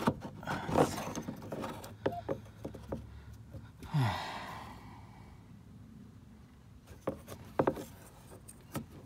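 Hard plastic clicks and knocks from handling a Pontiac Aztek license plate lamp housing and its bulb socket as the lamp is worked out of the rear hatch. A short rush of noise comes about four seconds in and fades away.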